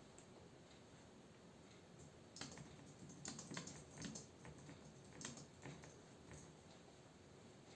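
Faint typing on a computer keyboard: a quick run of keystrokes lasting about four seconds, starting about a third of the way in, with quiet room tone before and after.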